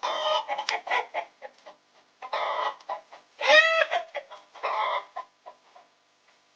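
Domestic hen clucking in several bursts, with a louder drawn-out squawk about halfway through.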